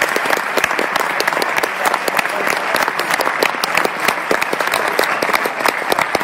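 Cinema audience applauding steadily, a dense patter of many hands clapping.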